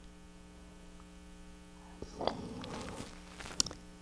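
Steady electrical mains hum on the recording. Around two seconds in comes a short stretch of soft mouth and breath noise with a couple of sharp clicks, as she brings her hand up to her mouth.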